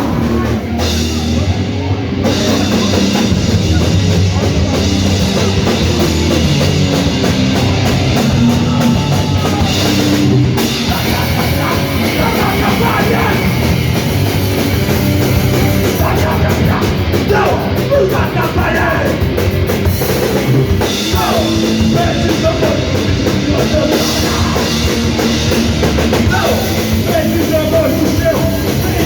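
Crust punk band playing live and loud: a drum kit driving dense, heavy rock with guitars and bass, without a break.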